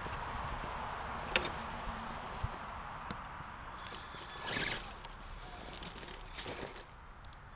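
Axial SCX-10 RC scale crawler working slowly over loose dirt and stones: a hiss of tyres and drivetrain, a couple of sharp clicks of stones, and a louder scrape about four and a half seconds in.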